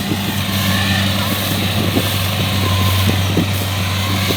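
Kubota DC-70 combine harvester's diesel engine running steadily at a constant pitch and level.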